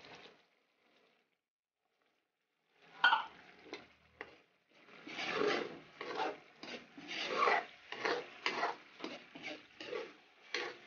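Metal ladle scraping and stirring sardines in sauce in a metal wok, in repeated strokes of about two a second. It starts about three seconds in, after a short pause.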